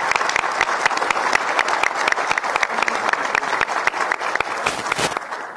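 A roomful of people applauding, a dense stretch of hand clapping that thins out and stops about five seconds in.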